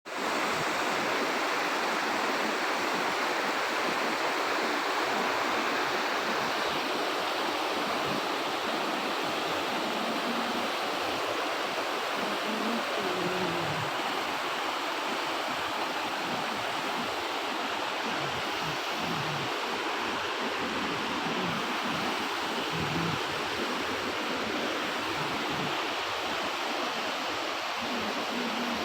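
Steady rush of water from a mountain stream, an even, unbroken roar of flowing water.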